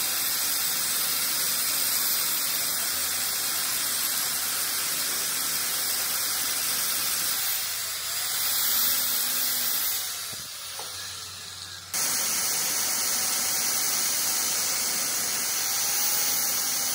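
Angle grinder grinding the steel teeth of a differential pinion gear being rebuilt, a steady high-pitched grinding hiss. It drops away for a couple of seconds past the middle, then comes back abruptly.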